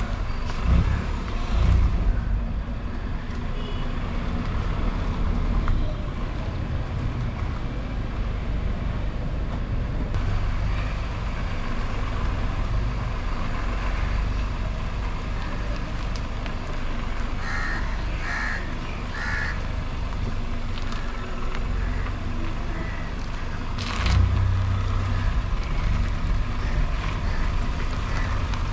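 Car driving slowly along a street, heard through a camera suction-mounted on the outside of the body next to the front wheel: a steady low rumble of tyre, road and wind noise on the microphone.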